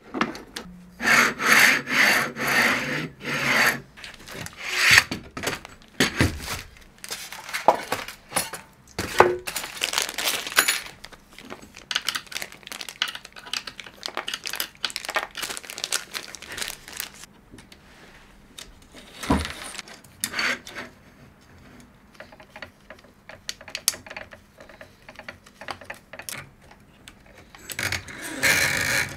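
Hands handling and fitting metal plates, smooth rods and frame pieces of a DIY 3D printer kit: irregular rubbing and scraping with short clicks and knocks. The scraping is busiest at the start and again near the end, with a quieter stretch in between.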